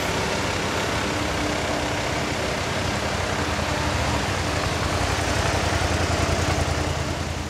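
Lamborghini Gallardo LP570-4 Spyder Performante's V10 engine running steadily at low revs, a deep pulsing rumble that grows a little louder later on and begins to fade at the very end.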